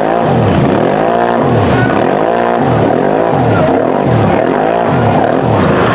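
Engine of a lifted, portal-geared mud ATV revving up and dropping back over and over, about once a second, as it churns through deep mud.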